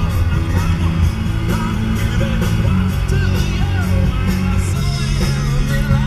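Rock music with a singing voice and guitar.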